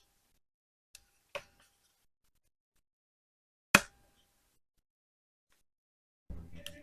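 A few sharp clicks of a metal SSD bracket and screws being handled against a 2.5-inch SSD: a faint click about a second in, one louder click near the middle, and a brief low rubbing rumble near the end.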